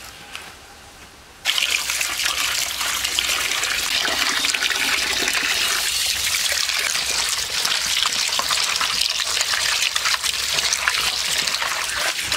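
Water pouring and splashing over pieces of snakehead (shol) fish in a steel colander as they are rinsed by hand. It starts suddenly about a second and a half in and goes on steadily.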